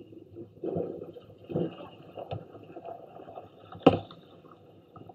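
One sharp slap about four seconds in, typical of a hand striking a beach volleyball, with a few softer thuds before it over faint steady background noise.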